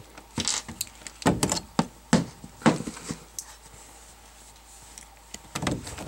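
Clicks and knocks of a three-prong electric range power-cord plug being handled and pushed into its wall receptacle. There are several in the first three seconds and a few more near the end.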